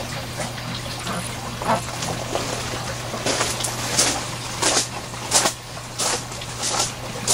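Footsteps crunching on a loose wood-chip floor, about one and a half steps a second from roughly halfway through, over a steady low hum and trickling water from the aquaponics system.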